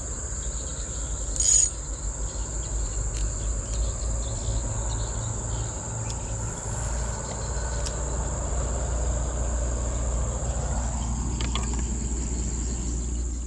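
Steady high-pitched drone of insects, over a continuous low rumble, with a single sharp knock about one and a half seconds in.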